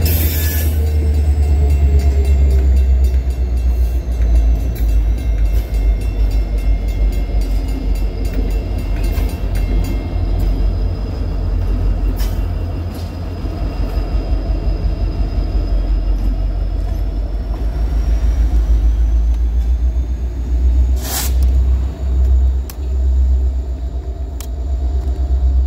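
Freight train of grain hopper cars rolling past at low speed: a steady low rumble with many faint wheel clicks and thin, slowly gliding squeals. A brief sharp noise stands out about 21 seconds in.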